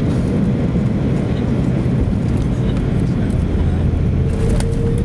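Airliner cabin noise during landing: a loud, steady rumble of the engines and the rush of air, with a few light rattles near the end.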